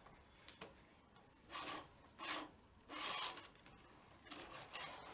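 Leather tabla strap (badhi) pulled through the drumhead's braid and ring, making several short rubbing swishes after a couple of faint clicks.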